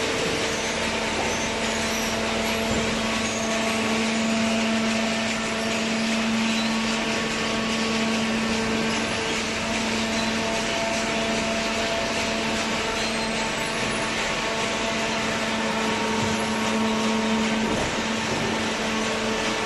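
Hydraulic baler's motor and pump running steadily: a constant machine hum with a steady low whine.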